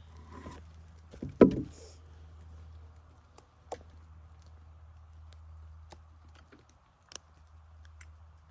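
A heavy wooden block set or dropped into place with one loud knock about a second and a half in, followed by a couple of lighter wooden knocks over a low steady hum.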